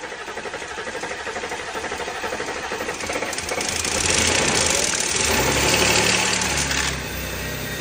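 Audi EA837 3.0-litre supercharged V6 running just after being started, with a fast, even clatter. It grows louder with a hiss from about three and a half seconds in, then eases back about seven seconds in.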